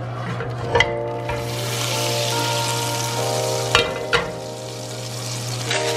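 Butter melting and sizzling in a hot nonstick grill pan: a frying hiss that builds after about a second, with three short sharp clicks.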